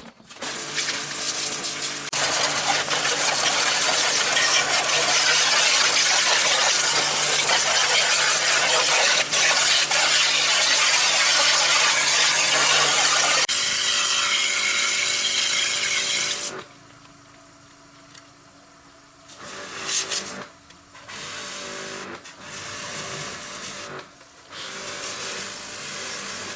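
A motorised tool running with a loud hissing noise over a steady motor hum, cutting off about two-thirds of the way through, followed by several shorter, quieter spells of running.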